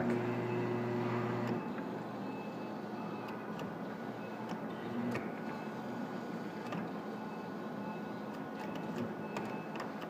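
Claw machine's gantry motors whirring as the claw is steered over the prizes, with a steady hum that drops out about a second and a half in and a few faint clicks.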